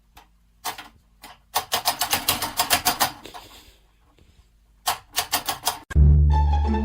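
A run of sharp, quick taps or clicks, about eight a second for over a second, with a few single clicks before and a short cluster later. Music comes in near the end.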